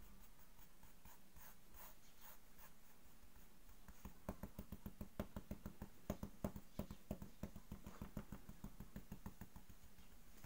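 Fingertips rubbing and dabbing glitter onto wet glass paint on a glass panel: a faint scratching, then from about four seconds in a quick run of light taps, about five a second.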